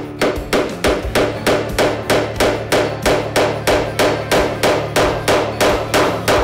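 A small hammer tapping a wooden batten against the frames of a model boat hull, with quick, even blows at about three a second.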